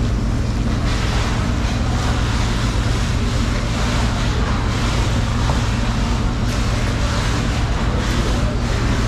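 A steady low rumble and hiss, like running machinery or wind, with repeated strokes of a large knife cutting through a bluefin tuna's skin and flesh.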